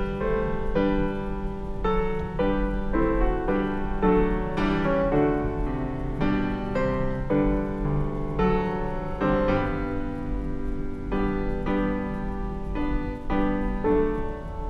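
Background piano music: a melody with chords, notes struck about twice a second, each ringing and fading.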